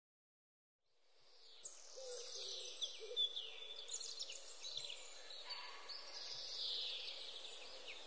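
Small songbirds singing: a stream of high chirps and trills over faint steady background noise, fading in about a second in.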